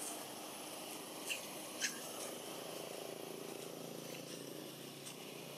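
Outdoor background ambience: a steady hiss with a faint low hum coming in about halfway, and two short, sharp high chirps or clicks between one and two seconds in.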